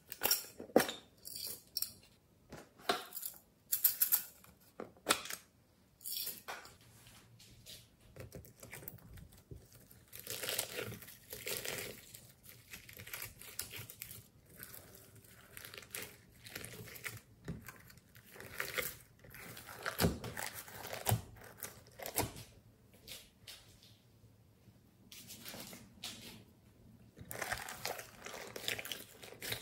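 Hands squeezing, folding and stretching glossy slime mixed with glitter and sequins in a glass dish: irregular sticky crackles and pops, with sharper clicks in the first few seconds.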